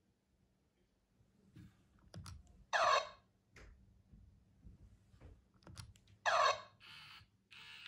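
Hasbro I-Dog robot toy's small gear motor ticking and clicking quietly as it moves its head and ears, with two short electronic sounds from its speaker about three seconds in and again about six seconds in. The motor runs quiet after being lubricated with WD-40.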